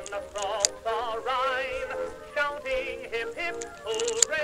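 Background music with a wavering, singing-like melody. Under it are a few sharp clicks as half-moon clips of cartridges are loaded into a revolver's swung-out cylinder.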